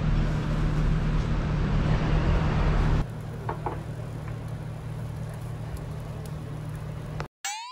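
Steady background noise with a low hum, dropping to a quieter steady hiss with a few faint clicks about three seconds in. Near the end it cuts off, and a short, rising whistle-like sound effect starts.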